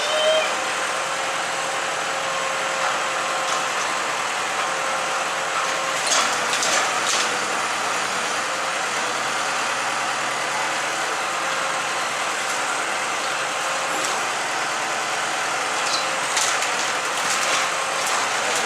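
A large outdoor bonfire burning with a steady rushing roar and occasional sharp crackles and pops, a few around a third of the way in and more near the end.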